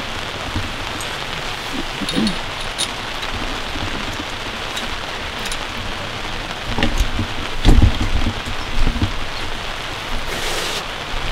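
Steady rain falling, an even hiss throughout. From about two-thirds of the way in there are low thumps and rumbles, and a short rush of hiss near the end.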